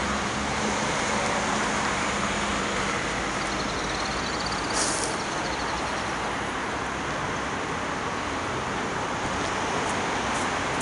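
Steady noise of road traffic, with a brief high-pitched sound about five seconds in.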